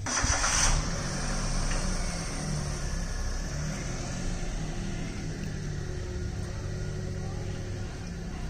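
Small car engine idling steadily, a low even hum. About the first second holds a brief loud rush of noise.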